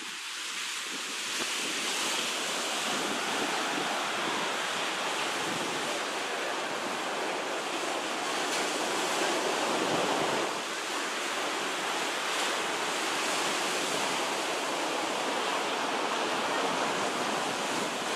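Low surf breaking and washing up a sandy beach in a steady, continuous wash, swelling a little about halfway through.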